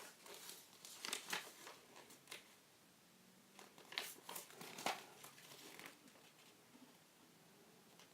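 Paper and plastic packaging crinkling and rustling in short, quiet bursts as a camera box's contents are rummaged through, with a stretch of near quiet between them.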